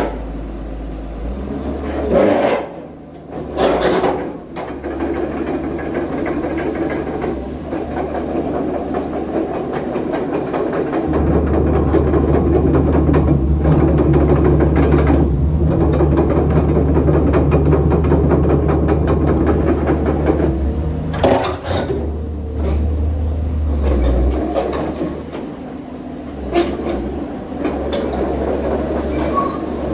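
Komatsu PC200-8 crawler excavator's six-cylinder diesel engine running as the machine works, the engine loading up and growing louder for a long stretch in the middle. A few sharp metal clanks come twice near the start and twice later on.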